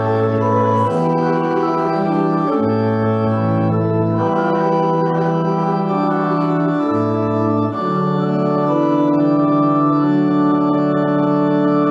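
Organ playing sustained chords that change every second or two, then settling onto one long held chord about two-thirds of the way in.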